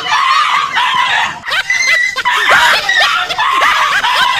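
Several high voices shrieking and laughing over one another in quick, rising and falling cries.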